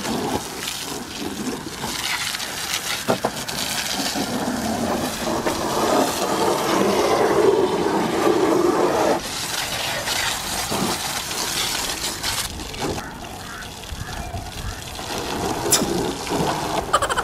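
Garden hose nozzle spraying a hard jet of water onto a car's body panels and wheel: a steady hissing splash that grows fuller past the middle, then drops off suddenly about nine seconds in.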